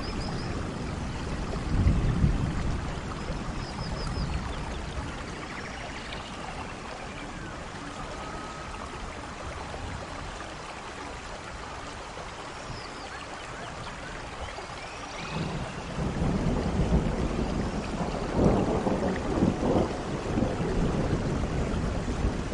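Background ambience of steady rain with low rumbles of thunder, the rumble swelling about two seconds in and again from about sixteen seconds on.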